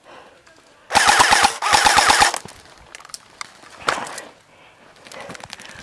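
Electric airsoft rifle (SRC M16A3 AEG) firing on full auto in two quick bursts back to back about a second in. Each burst is a rapid even rattle of shots over the whine of the gearbox. A fainter burst follows near four seconds in.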